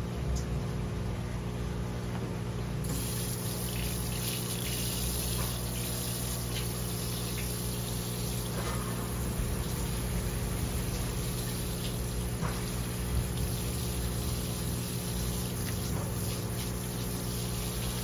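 A stream of tap water splashing steadily onto a large olive flounder lying on a plastic cutting board, coming on about three seconds in, rinsing the blood away while the fish is bled. A steady low hum runs underneath.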